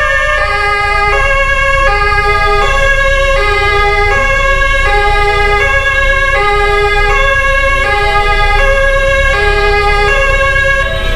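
Emergency vehicle's two-tone siren (Martinshorn) sounding continuously, switching between a high and a low note about twice a second, over a steady low rumble.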